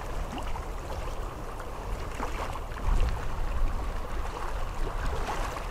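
Cold breeze buffeting the microphone, gusting louder about halfway through, with small waves lapping against a rocky lakeshore.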